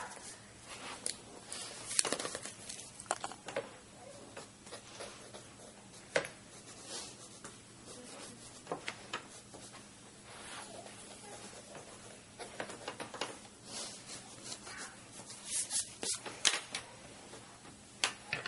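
Pencil strokes scratching on paper, irregular and short, with scattered light taps and clicks.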